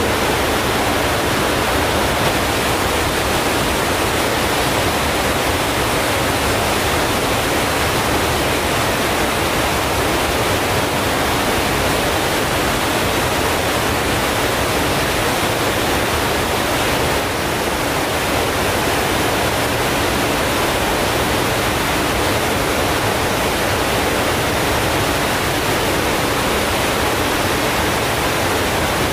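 Steady, loud rushing noise without tones or rhythm, with a brief slight dip about seventeen seconds in.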